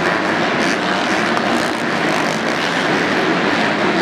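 Several 250cc four-stroke supercross bikes racing around the track, their engines blending into a loud, steady drone.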